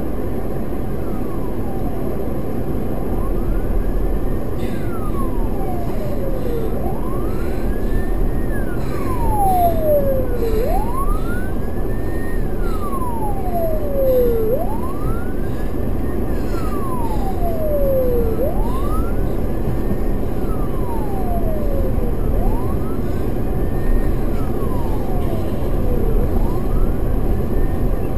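Emergency vehicle siren sounding a slow wail, rising and falling about once every four seconds, strongest in the middle of the stretch. Under it is the steady low rumble of the car as it idles and creeps along in traffic.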